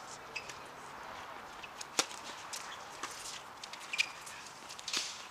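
Tennis ball struck by rackets in a doubles rally: two sharp pops about two seconds apart, with lighter ticks of ball bounces between them.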